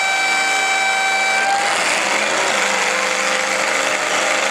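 A horn sounding in long steady blasts over the running engines of demolition derby cars. A higher blast cuts off about a second and a half in, and a lower-pitched one follows.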